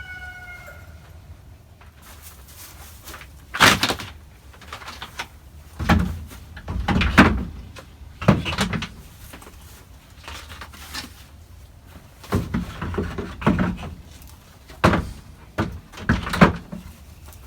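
A rooster's crow trails off at the start. Then come irregular knocks and thumps of wood and plastic being handled and bumped, about a dozen in all, as screws go into the wooden nest-box frame and plastic crate nest boxes are set back in.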